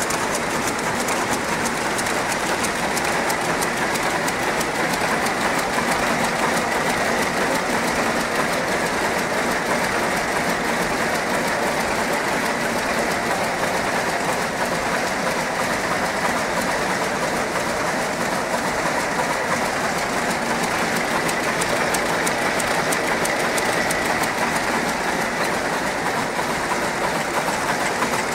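910SK towel rapier loom running at speed: a loud, steady, fast clatter of the loom's weaving mechanism.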